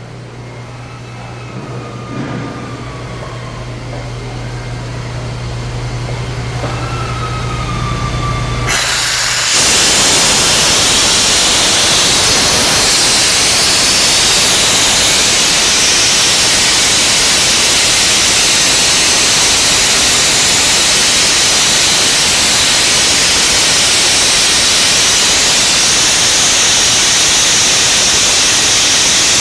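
Pacific Steam PSE-36 36 kW electric steam boiler running with a steady low hum and a slowly rising hiss, then about nine seconds in steam starts venting with a sudden loud, steady hiss that keeps on.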